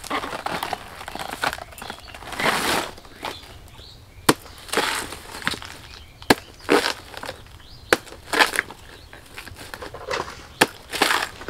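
Fleshy leaf sheaths of a felled banana trunk being cut with a sickle and torn away in layers to reach the inner stem: irregular crisp cracking and ripping, with a few sharp snaps.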